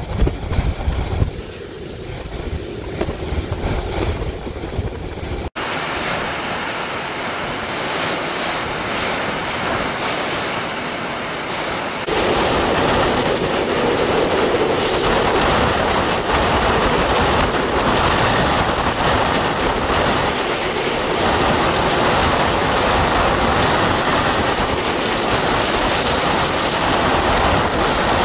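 Hurricane eyewall winds with driving rain: a continuous rushing noise. For the first few seconds it is heavy low buffeting of wind on the microphone. After a cut it becomes an even rushing hiss that steps louder about twelve seconds in.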